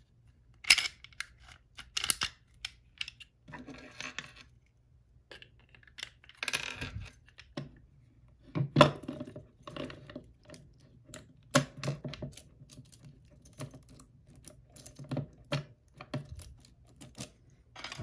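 Handling noise from a Smith & Wesson M&P Shield pistol being fitted with a plastic-coated cable lock: irregular clicks, clacks and light clinks as the gun is turned over on the desk and the cable is threaded through it and pushed into the lock head.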